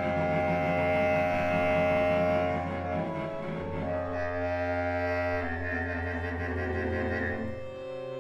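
Background music: slow, sustained bowed string notes, cello and double bass, changing pitch every second or two.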